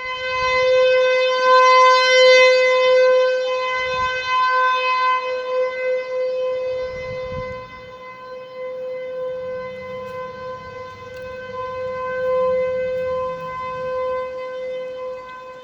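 Tornado warning siren sounding one steady held tone, its loudness swelling and ebbing, then dropping lower about halfway through.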